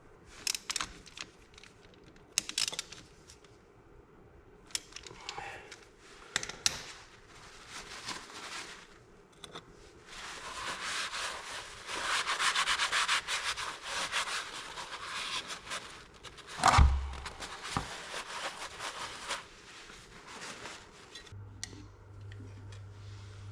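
Oil pouring from a can down a makeshift aluminium-sheet chute into an excavator's final drive, with clinks from handling the can and sheet. Scattered clicks come first, then several seconds of dense rushing, scraping noise, broken by one heavy thump.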